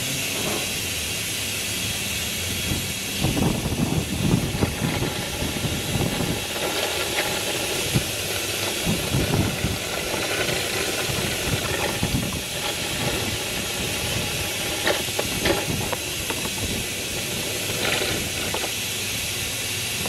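Suction hose hissing steadily as it sucks spilled engine oil out of a diesel engine's valley, with irregular gurgling slurps a few seconds in and again near the middle.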